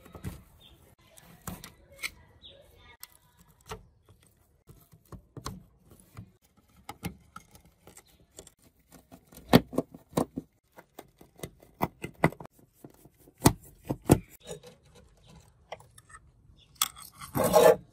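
Scattered small clicks, taps and knocks of hands and a screwdriver working on a TV main circuit board: a plastic wire connector pulled out, mounting screws turned out, and the board shifted on its metal chassis. A louder scraping noise lasting under a second comes near the end.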